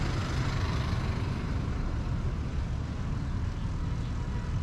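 Steady low road-traffic noise from vehicles on the road, heaviest in the low end, with no distinct events.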